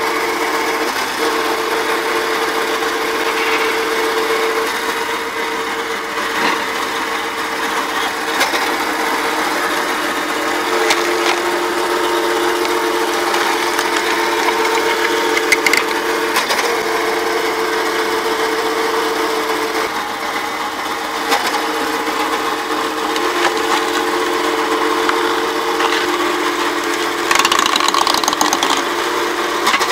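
Tractor-driven hydraulic log splitter running steadily. Its drone shifts in pitch several times as the ram pushes a log through a multi-blade splitting grid, with a few sharp cracks of splitting wood.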